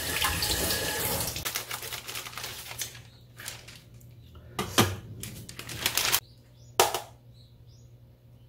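Egg and onion sizzling in a frying pan for about three seconds. This is followed by a few sharp clicks and knocks as kitchen things are handled and set down beside a bamboo rolling mat.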